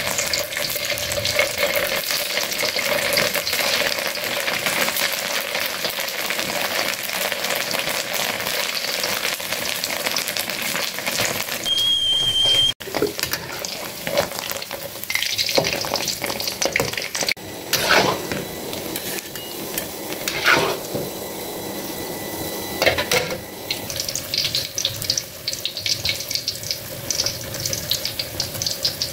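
Hot oil crackling and sizzling in a wok as mushroom-stem balls deep-fry. In the second half a metal spatula knocks and scrapes against the wok several times.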